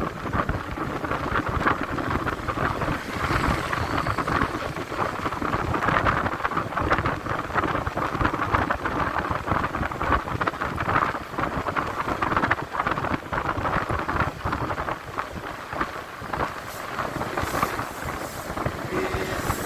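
Wind rushing and buffeting over the microphone of a moving motorcycle, with the motorcycle's engine running underneath, steady and unbroken.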